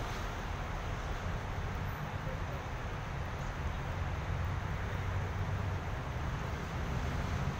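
Steady low rumble and hiss of outdoor urban background noise, with no distinct events standing out.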